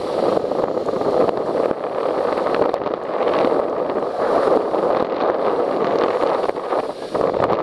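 Steady rushing noise of skiing downhill: air rushing over the microphone and skis sliding on packed snow, rising and falling a little with the turns.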